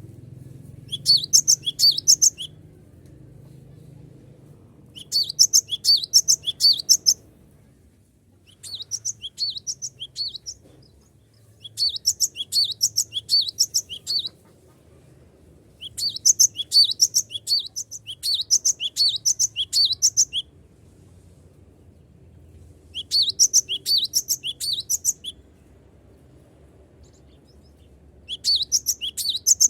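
Cinereous tit (gelatik batu) singing in bouts of rapid, high-pitched notes, each bout about two seconds long, repeated seven times with short pauses between.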